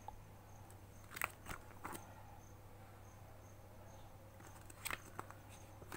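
Book pages being turned and handled: a few short paper rustles about a second in and again near the end, over a low steady hum.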